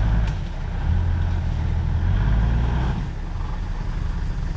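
Off-road 4x4's engine running at low speed, a low rumble that grows louder about a second in and eases off near three seconds in.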